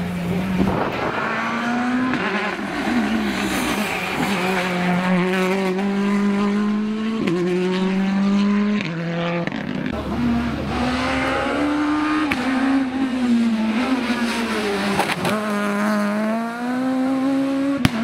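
Rally car engine revving hard as it climbs toward the listener. Its pitch rises through several long pulls and drops suddenly at each gear change. A sharp click comes just before the end.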